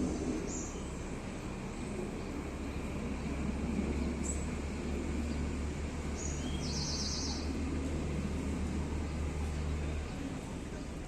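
Outdoor background noise with a steady low hum, broken by a few short, high bird chirps, one of them a quick trill about seven seconds in.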